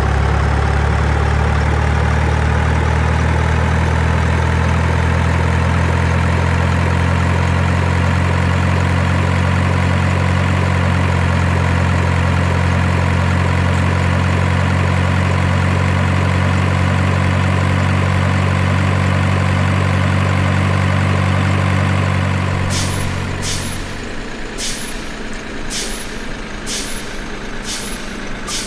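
Heavy truck engine running steadily with a deep low rumble that drops away about 23 seconds in, followed by a series of short sharp high sounds about a second apart.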